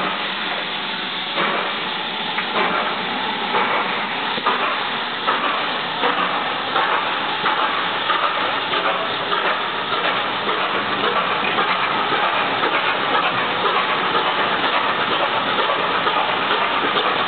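Steam tank locomotive pulling away with a passenger train: steam hissing and exhaust beats coming quicker and quicker as it gets under way, then coaches rolling past on the track.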